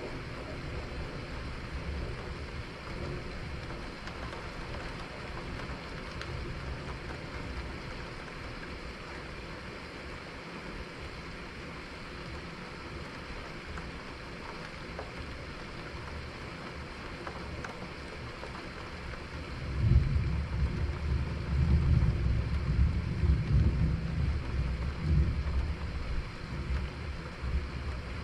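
Steady rain hiss with a roll of thunder that breaks in suddenly about two-thirds of the way through and rumbles loudly for several seconds.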